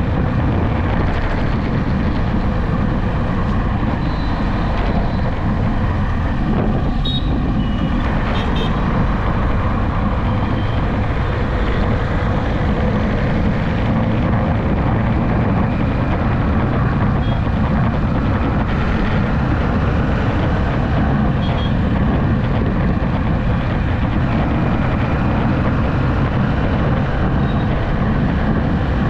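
Steady road and wind noise with engine hum from a vehicle cruising on a highway, recorded on board. A few faint short high beeps sound about seven to nine seconds in.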